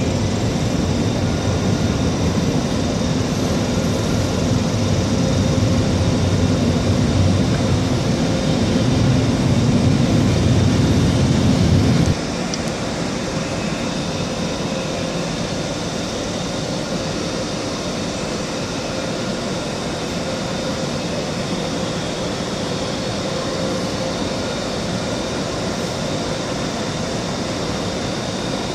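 Electric trains in a station hall: a loud low rumble for the first twelve seconds that cuts off abruptly, then a quieter steady hum with faint constant tones as an ÖBB Railjet's Taurus electric locomotive (class 1116) draws slowly up to the platform.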